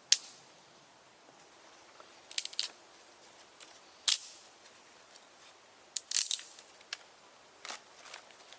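Sharp snaps and clicks at irregular intervals: one right at the start, a quick cluster about two and a half seconds in, a single loud one about four seconds in, another cluster about six seconds in, and fainter ones near the end.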